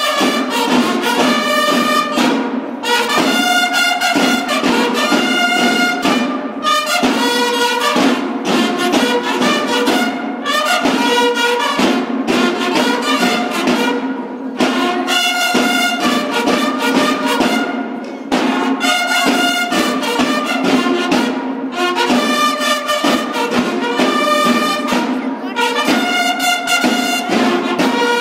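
Mexican banda de guerra playing: bugles sounding a call in phrases of a few seconds of held notes, over steady drumming.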